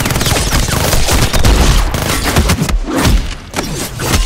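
Designed sound-effect gunfire: a rapid, dense string of pistol shots for roughly the first two and a half seconds. After that come fewer, spaced-out sharp hits.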